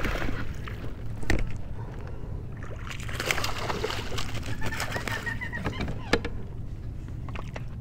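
Water splashing and sloshing around a kayak as a hooked largemouth bass is fought near the surface, with scattered sharp knocks and clicks from handling the rod and boat.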